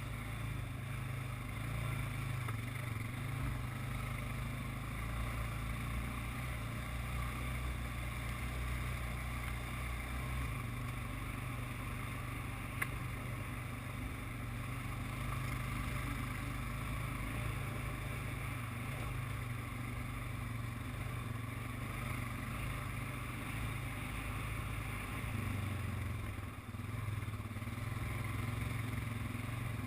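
ATV engine running steadily as the quad rides along a trail, with a short easing off about three-quarters of the way through.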